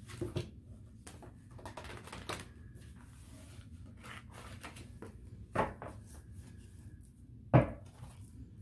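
A deck of tarot cards being shuffled and cut by hand: soft rustling of the cards with a few short knocks as the deck is tapped or set against the table, the loudest near the end.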